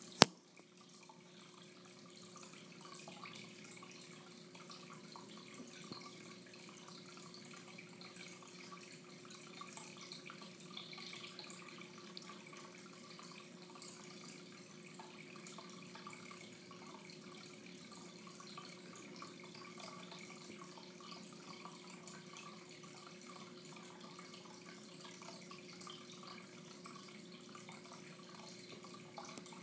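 Aquarium filter running: a steady trickle of water with a low, even hum. A single sharp click right at the start.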